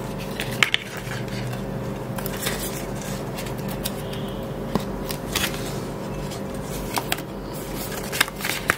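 Cardboard packaging handled by hand: scattered light taps, scrapes and rustles as a box sleeve and printed card are moved and pulled out, over a steady low hum.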